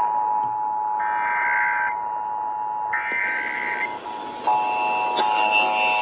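Emergency Alert System two-tone attention signal (853 and 960 Hz together) playing through a radio speaker, with a higher beep about a second long sounding three times, two seconds apart. The two-tone stops around three seconds in, and about a second and a half later a new, fuller set of overlapping alert tones from several receivers starts.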